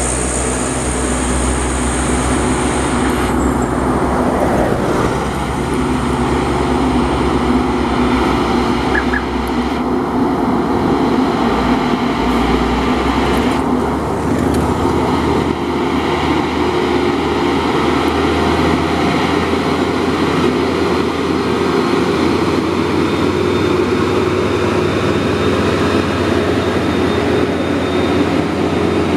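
Diesel engines of loaded heavy trucks, a UD Quester among them, running steadily under load as they pull up a climb, with tyre and traffic noise from vehicles passing close by.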